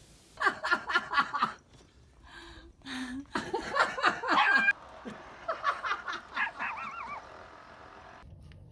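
Laughter in three bouts of quick, pulsed bursts, with abrupt cuts between them.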